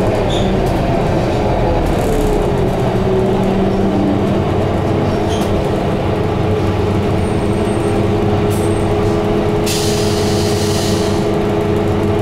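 Scania K230UB double-decker bus underway, heard from the upper deck: its rear-mounted five-cylinder diesel engine and driveline run steadily, with whining tones that change pitch about four seconds in. A short burst of air hiss comes about ten seconds in.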